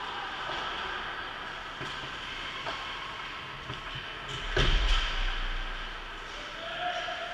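Ice hockey skates scraping and carving on the ice, with the steady hollow rumble of an ice arena, and one loud thud about four and a half seconds in as play piles up around the net.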